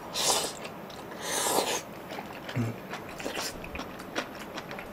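A person slurping noodles from a bowl, two long slurps in the first two seconds, then chewing with small wet clicks.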